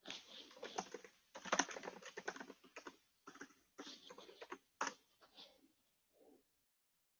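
Typing on a computer keyboard: irregular runs of key clicks with brief gaps between them.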